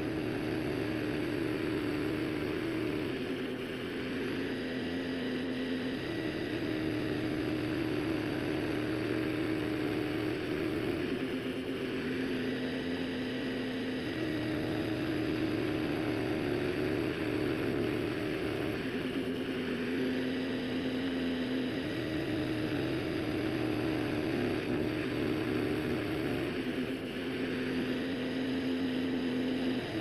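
Small gasoline engine of a walk-behind Hudson band sawmill running steadily. About every seven seconds its pitch drops a little for a couple of seconds, then comes back up.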